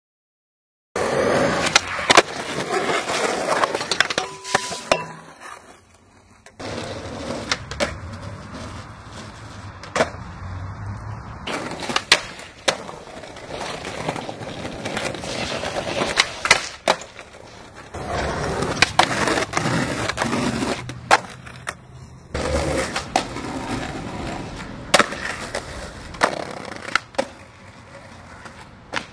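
Skateboard wheels rolling on concrete, broken by repeated sharp clacks of the deck popping and slapping down on landings across several tricks, after about a second of silence at the start.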